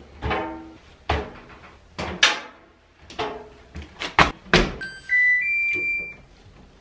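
Stacked front-loading washer and dryer being handled: a string of knocks and latch clicks from the appliance doors as the washer is unloaded, then near the end a short run of electronic beeps from the dryer's control panel, a few steady tones stepping up in pitch as it is set to run.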